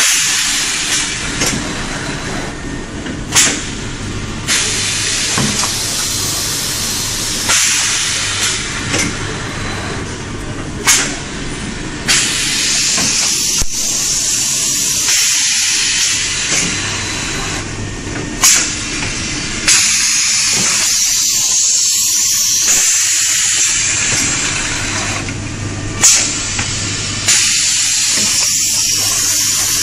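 Four-station rotary-table high-frequency welding and cutting machine running its cycle: a steady hiss over a low hum, with short sharp hissing bursts about every seven or eight seconds.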